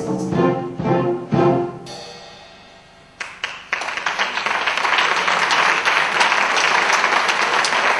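A youth wind band plays a few last accented chords that ring out and fade. A few seconds in, scattered claps start, and the audience breaks into steady applause.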